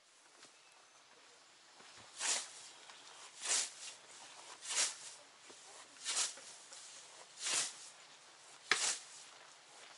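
Hand scythe mowing grass: six evenly spaced swishing strokes, about one every second and a half, starting about two seconds in.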